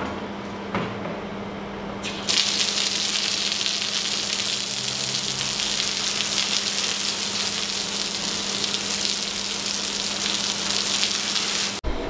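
Water hose spraying onto the floor: a loud, steady hiss of water that starts about two seconds in and cuts off suddenly near the end.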